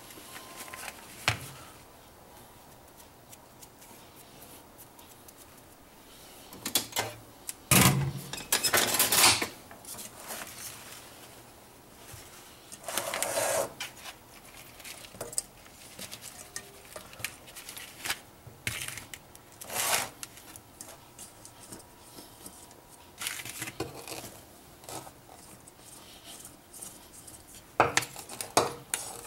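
Kitchenware being handled: a stainless steel mixing bowl and a plastic colander knocked, set down and shifted, giving scattered clinks and knocks with a few short rustling, scraping bursts as the fish are worked in flour.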